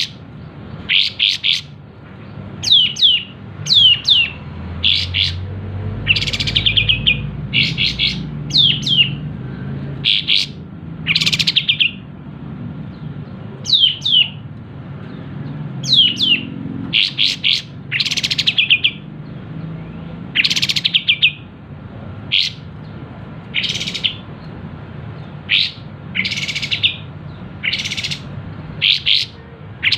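Sooty-headed bulbul singing in loud, short chirping phrases about every one to two seconds, some sweeping quickly down in pitch and others quick and rattly.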